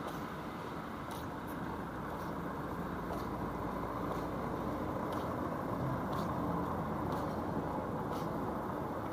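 Steady street noise of city traffic on a wet road, swelling a little midway, with faint footsteps ticking about once a second.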